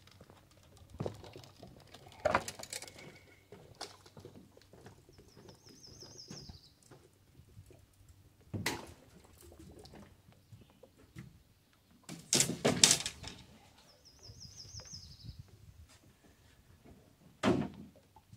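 Scattered dull knocks and thuds, the loudest a quick cluster about two-thirds of the way through, with a bird giving a short high trill twice.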